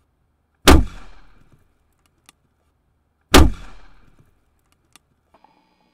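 Potato cannon firing twice: two sharp bangs about two and a half seconds apart, each dying away over about a second, with a faint crack following each about a second and a half later.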